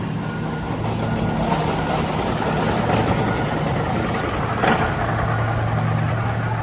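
Heavy diesel engine of a road-construction machine running steadily, with a brief sharp burst about four and a half seconds in.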